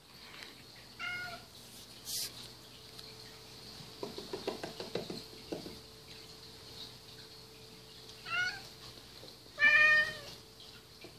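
Domestic tabby cat meowing three times: one short meow about a second in, then two near the end, the last the loudest and longest. A brief run of soft knocks comes in the middle.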